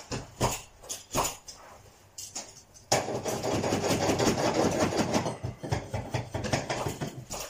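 Carpet-fitting tool work: a few separate sharp knocks, then from about three seconds in a dense, continuous rasping mechanical noise that runs until shortly before the end.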